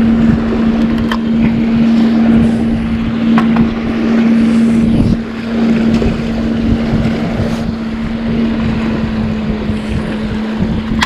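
Boat engine running steadily with a constant hum, while wind buffets the microphone.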